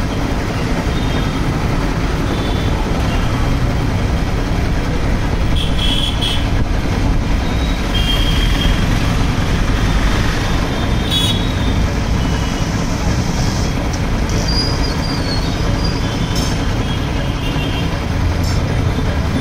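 A 0.5 hp single-piston air compressor, belt-driven by a single-phase Crompton electric motor, running steadily as it pumps up its 40-litre tank.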